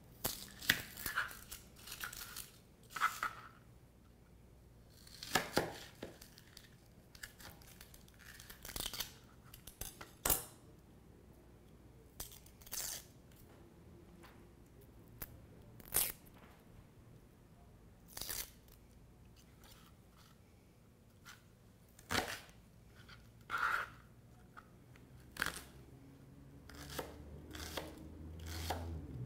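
Chef's knife cutting a shallot on a plastic cutting board, with the papery shallot skin crackling as it is peeled off by hand. Scattered short knocks of the blade on the board, coming closer together near the end as the dicing starts.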